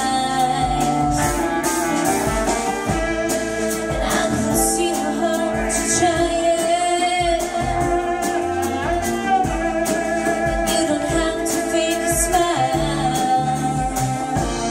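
Live band music: a woman sings lead at a keyboard over a full band with drums, holding long wavering notes.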